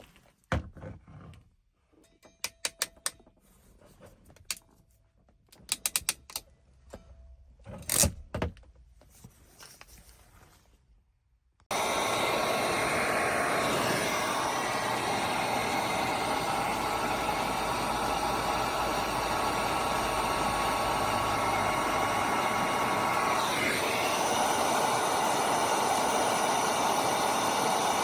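Crimp tool clicking in short bursts as crimp connectors are squeezed onto spliced wires. About twelve seconds in, a steady blowing hiss starts suddenly and runs on: a heat gun shrinking the connectors' built-in heat-shrink tubing.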